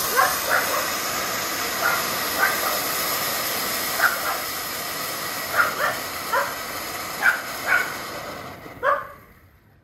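Small fountain firework spraying sparks with a steady hiss that dies away as it burns out near the end. A dog barks repeatedly over it, about ten short barks.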